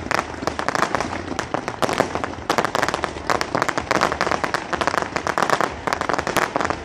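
Fireworks display: a dense, rapid string of sharp bangs and crackles from many shells bursting at once.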